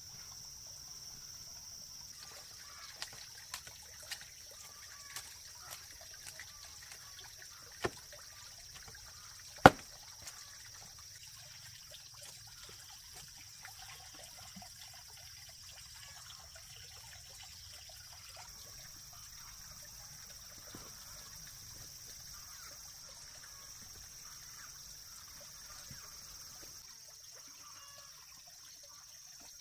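Shovel and hoe working loose garden soil: scraping and dull scoops, with a string of sharp knocks in the first third and one loud knock about ten seconds in, as the blade strikes ground, stones or the wheelbarrow. A steady high insect drone runs behind.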